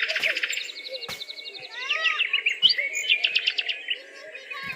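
Several songbirds chirping and singing over one another, with fast trills and quick rising and falling whistled notes.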